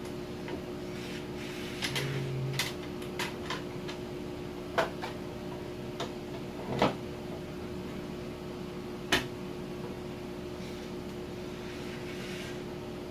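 Scattered clicks and knocks of a cordless circular saw and its plastic guide sled being handled as the saw's base plate is fitted into the sled's clamps and lifted off again, a few sharper knocks among them, over a steady low hum.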